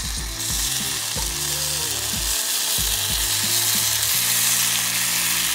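Mini pancake batter sizzling in a small hot frying pan as drops are squeezed in from a squeeze bottle, the steady hiss growing louder as more batter goes in.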